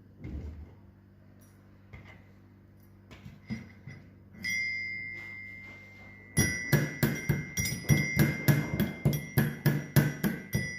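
Cloves being pounded in a metal mortar with its pestle. A few light knocks come first, then the mortar rings once about four seconds in. From about six seconds in, the pestle strikes steadily at about two to three blows a second, and the metal rings on between blows.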